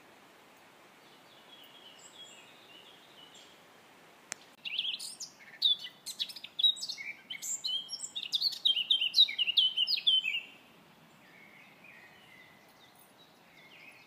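Forest songbirds singing. Starting about a third of the way in, a nearby bird sings a loud, rapid, varied phrase of high notes lasting about six seconds, with fainter songs from other birds before and after it. A single short click comes just before the loud song.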